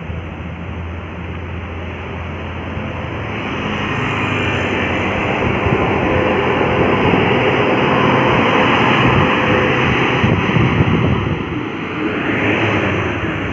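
Heavy diesel engine of a bus or truck labouring up a steep climb. The sound grows louder from about three seconds in and dips briefly near the end.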